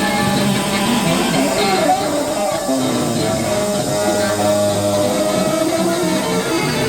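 Background music led by a guitar.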